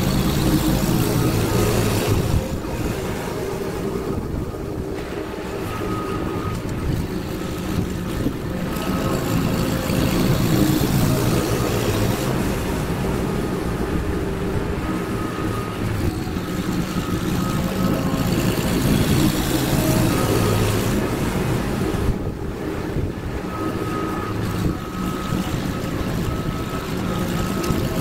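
Troy-Bilt 163cc single-cylinder push-mower engine running steadily while mowing grass, its level swelling and easing a little as it works.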